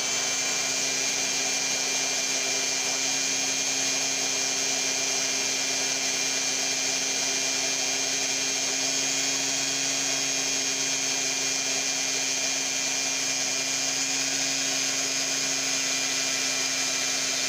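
Handheld pen-style rotary tool fitted with a diamond bit, running at a steady speed with a constant whine as it grinds into a water-cooled mudstone rock.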